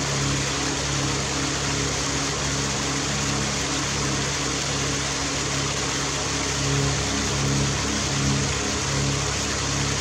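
Waterfall cascading over rocks into a pool: a steady rush of falling water with a deeper rumble underneath.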